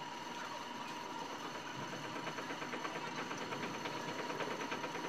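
A small machine running steadily with a high whine, joined from about two seconds in by a fast, even ticking rattle.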